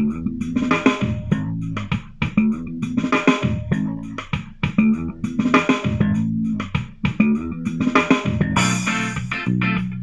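A song with guitar, bass and drums played back through an Awei Y371 portable Bluetooth speaker, picked up by a microphone in the room.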